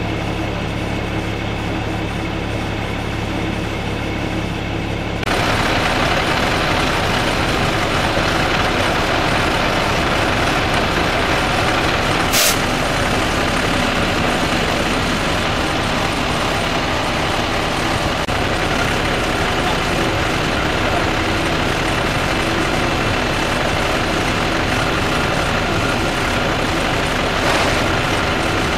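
Heavy truck's diesel engine running steadily. About five seconds in the sound turns abruptly louder and noisier, and a single brief sharp sound comes about twelve seconds in.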